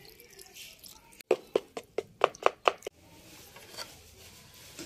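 A spoon beating a flour, egg and milk batter in a bowl: about seven quick strokes, roughly four a second.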